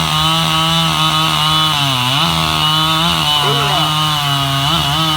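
Echo CS-7310P two-stroke chainsaw with a 24-inch bar running at full throttle while cutting through a log. Its engine pitch sags briefly several times as the chain bogs under load in the cut.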